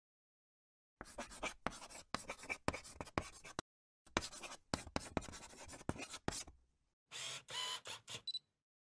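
Pen writing on paper: scratchy strokes in two runs of a couple of seconds each, as if writing two words, then a few shorter strokes with a slight squeak near the end.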